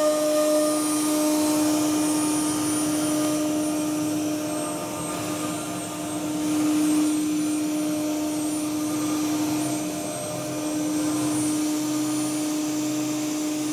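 A motor-driven machine running steadily: a constant hum with an airy rush over it that swells and eases slightly.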